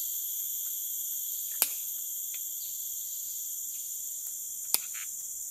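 Steady, high-pitched chorus of rainforest insects, with two sharp clicks, about a second and a half in and again near the end.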